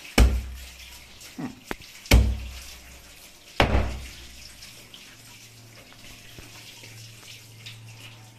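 Three heavy knife chops on a chopping board, each a dull thud, about one and a half to two seconds apart, as a large catfish is chopped into pieces.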